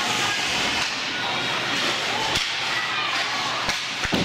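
Ice hockey game sounds in a rink: a steady hiss of skates on the ice under crowd chatter, with a few sharp knocks of sticks and puck from about halfway on.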